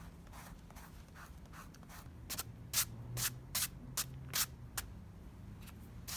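Dried masking fluid being rubbed off watercolor paper: a series of short, scratchy rubbing strokes, about two or three a second, faint at first and loudest from about two seconds in.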